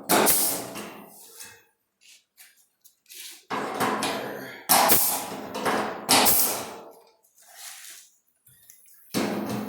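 Hammer blows on automotive sheet metal, a handful of hard strikes a second or so apart, each ringing and dying away, with a few lighter taps between.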